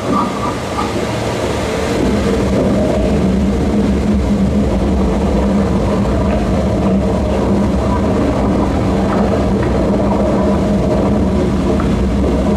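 Loud, steady low rumbling drone with a sustained hum underneath, from the soundtrack of a Halloween projection show on a pirate ship; the hum settles in about two seconds in.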